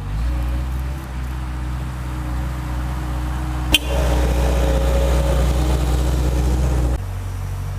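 JCB 135 skid steer's diesel engine running steadily. A little past midway there is a single sharp knock, after which the machine runs louder with a higher whine. It drops back to a steady run about a second before the end.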